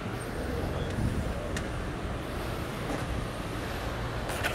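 Steady low rumble of town road traffic, with a few sharp clicks near the end.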